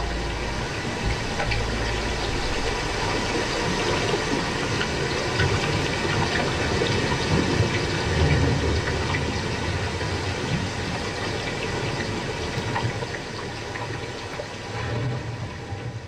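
Sound-art playback in a room: a dense, rushing noise over a low rumble, dotted with small crackles and clicks, easing off near the end.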